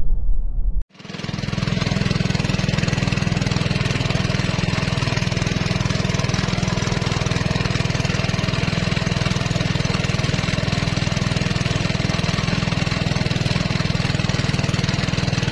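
A small boat engine running steadily at constant speed, starting abruptly about a second in after a brief intro sound cuts off.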